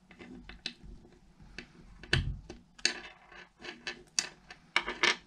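Small parts of a replacement tension cleat being handled and set down on a wooden board: a scatter of sharp clicks and taps, the loudest about two seconds in and near the end.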